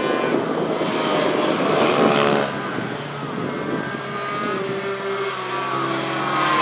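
Racing motorcycle engines running hard on a track, several at once, their pitch rising and falling as the riders accelerate and back off through the corners.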